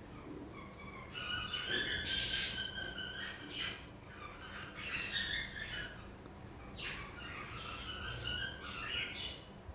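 Pet parrot squawking and chattering: a run of short, harsh calls with brief breaks between them.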